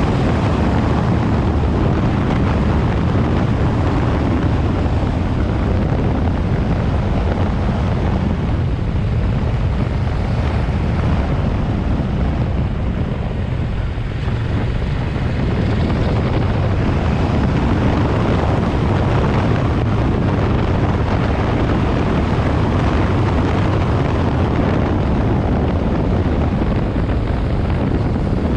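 Yamaha Ténéré 700's parallel-twin engine running as the motorcycle is ridden, a steady low engine note. It eases off and goes a little quieter for a few seconds around the middle, then picks up again.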